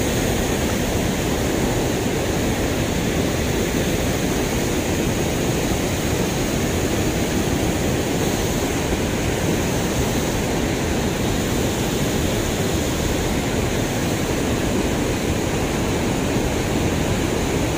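Steady, constant rush of river water pouring over a concrete weir.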